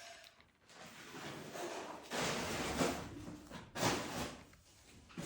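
Rustling and shuffling of objects being handled and moved about, in uneven noisy stretches, louder about two seconds in and again near four seconds.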